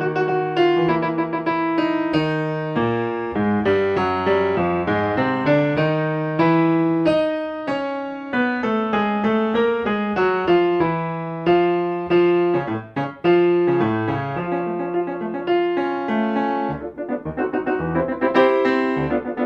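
Solo piano music, the accompaniment to a silent film, played as a continuous run of notes.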